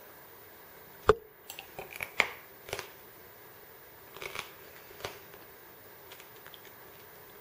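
Crunching of crispy pork belly crackling being bitten and chewed: a sharp crack about a second in, then a few softer crunches.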